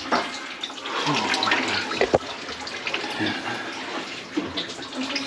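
Water splashing and sloshing, with one sharp knock about two seconds in.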